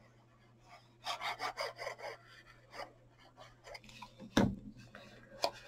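Card stock being rubbed and scraped by hand: a quick run of scratchy strokes about a second in, then one sharp knock about four seconds in, the loudest sound, and a small click near the end.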